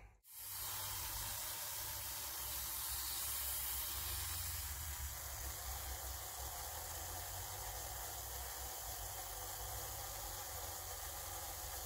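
Compressed-air aerosol generator hissing steadily at about 3 atmospheres, blowing a varroa-treatment aerosol into a beehive through its entrance hole. The hiss starts about half a second in.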